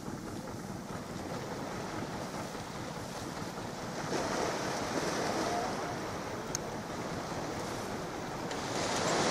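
Sea water washing and splashing with wind buffeting the microphone, a steady rushing noise that grows louder about four seconds in. One short click about two-thirds of the way through.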